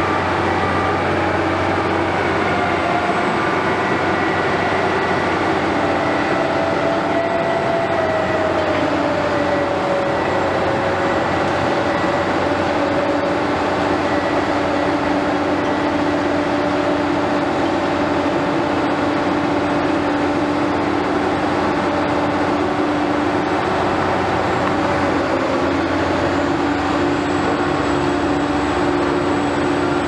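Heavy construction machinery running continuously: a steady, loud diesel drone with several held whining tones, one of which slides down in pitch about eight to eleven seconds in.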